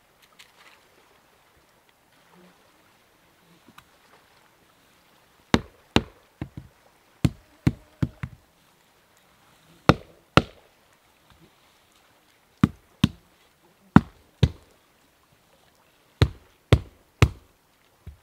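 Axe blows chopping into wood. After a few quiet seconds, sharp strikes begin and come in groups of two or three, about half a second apart, some seventeen in all.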